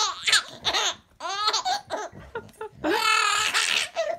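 A baby laughing in several high-pitched bouts, the longest about three seconds in.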